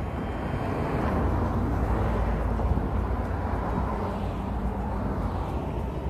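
Outdoor traffic noise: a steady low rumble with a rushing swell of passing vehicles that builds about a second in and slowly fades.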